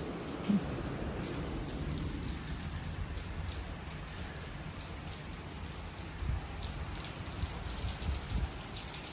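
Steady rain falling, with many small drop ticks and a low rumble underneath.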